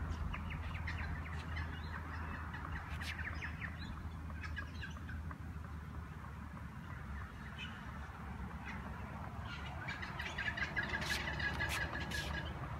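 Birds chirping in rapid chattering runs, one spell early and another near the end, with occasional light taps of a tennis ball bouncing off a racquet frame.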